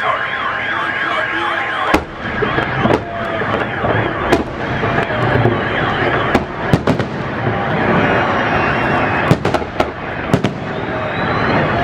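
Festive salute fireworks going off: a string of sharp bangs at irregular intervals with continuous crackling between them. A warbling alarm sounds in the first two seconds, before the bangs begin.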